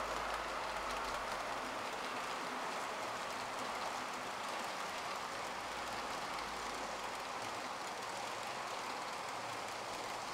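Model trains running on the layout: a steady running noise of small wheels on rail, with faint fine clicks throughout.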